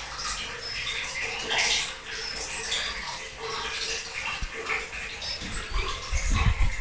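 Small birds chirping: short, scattered high calls over a steady outdoor hiss. Low rumbling on the microphone starts near the end.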